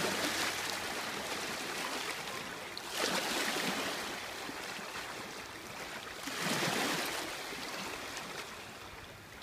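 Small river waves lapping and washing against the shore, a steady rush of water that surges three times a few seconds apart.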